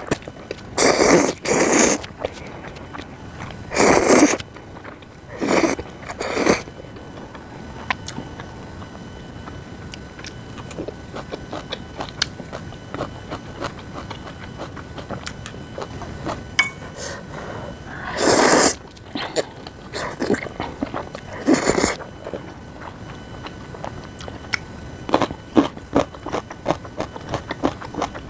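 Close-miked eating of Jjapaghetti and crisp spring-cabbage geotjeori: several loud noodle slurps about half a second to a second long, then chewing with a quick run of crisp crunches near the end.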